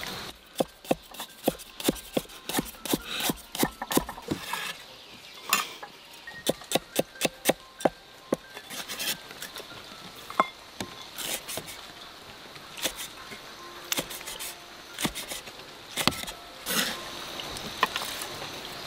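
Chinese cleaver chopping on a thick wooden chopping block: runs of sharp knocks, several a second, broken by short pauses, with single scattered strokes later.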